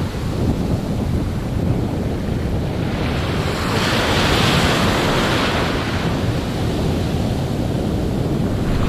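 Ocean surf breaking and washing up the beach, one wash swelling about halfway through, with wind buffeting the microphone as a steady low rumble.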